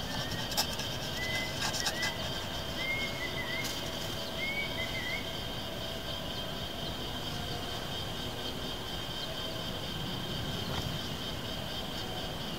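Forest ambience: a bird gives a few short whistled calls in the first five seconds over a steady high-pitched insect drone and a low rumble. A few light clicks of a knife on a metal plate come through.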